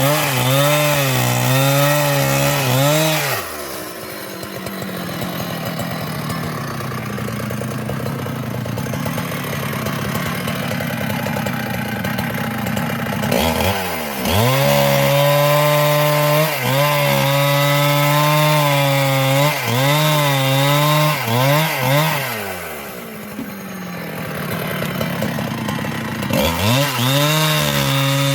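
Husqvarna two-stroke chainsaw cutting through wood at high revs, its pitch wavering as the chain loads in the cut. The engine drops back twice, for about nine seconds after the first few seconds and again for about four seconds past the middle, then revs up and cuts again.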